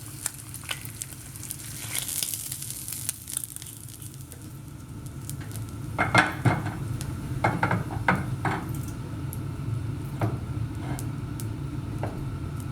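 Bacon sizzling in a frying pan, the hiss dying down over the first few seconds, then a run of clicks and knocks of a utensil against the pan and plate as the cooked bacon is lifted out. A steady low hum runs underneath.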